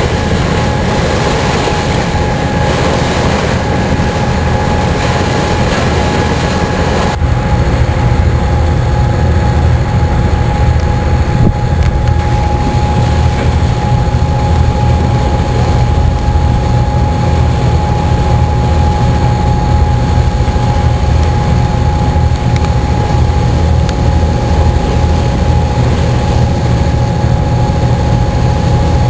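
Diesel engines of the car ferry MV Loch Striven running steadily: a deep rumble with a steady hum over it. About seven seconds in the hiss falls away and the low rumble gets louder.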